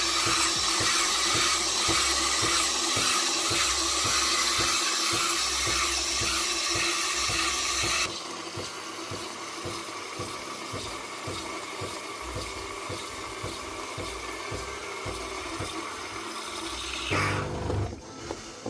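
Nespresso Gran Latissima pod machine on a clean-water rinse cycle: a strong steady hiss of water and steam jetting out for about eight seconds, then a quieter hiss. Near the end the pump hums briefly and the flow stops.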